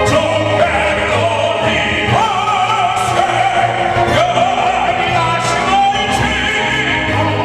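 Operatic singing with instrumental accompaniment: the voice holds long notes with a wavering vibrato over a steady bass line.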